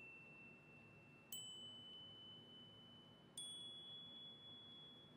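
Faint, bell-like chime sound effect struck twice, each note a little higher in pitch than the one before and left ringing.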